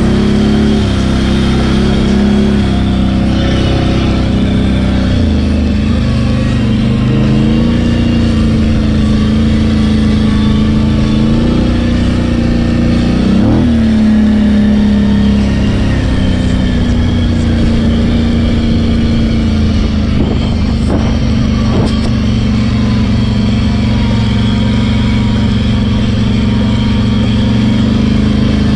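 ATV engine running under throttle while riding a dirt trail, its pitch shifting with the throttle and a quick rev about halfway through.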